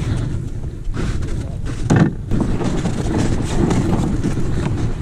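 Wind buffeting the microphone, a steady low rumble, with scattered rustling and a louder burst of it about two seconds in.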